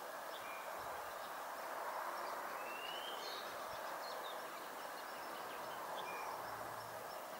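Steady outdoor background noise with a few faint bird chirps scattered through it, one of them a short rising call about three seconds in.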